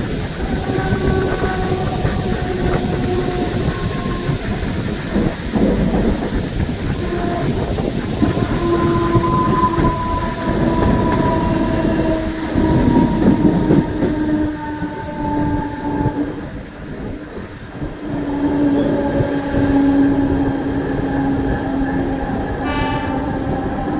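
Mumbai suburban electric local train running, heard from its open doorway: a steady rumble of wheels on rails, with whining tones that hold for a few seconds and drift slowly in pitch.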